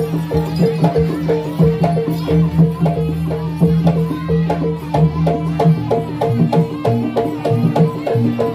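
Live Javanese jaranan gamelan music: a quick, steady beat of drum strokes over ringing tuned gong-chime tones. The low notes shift to a new pattern about six seconds in.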